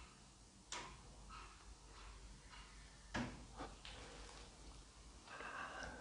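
Quiet room with faint scattered clicks and taps; a sharper click about a second in and another about three seconds in.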